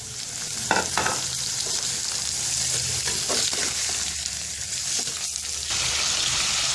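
Raw chicken pieces sizzling in hot oil and onion in a metal pot as they start to fry. A metal spoon scrapes and knocks against the pot a few times as they are stirred. The sizzle grows louder near the end.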